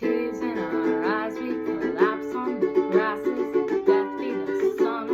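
Ukulele strumming chords in a small room, with a gliding melody line over the chords.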